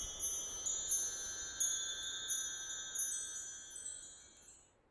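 Wind chimes tinkling: many high, bell-like tones struck in quick, irregular succession, each ringing on, the whole cluster dying away near the end.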